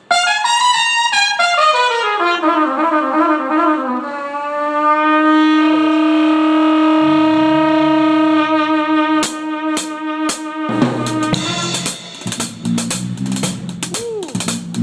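Trumpet playing a fast descending run, then holding one long note. Bass notes and sharp drum hits come in under it, and the full band with drums joins near the end.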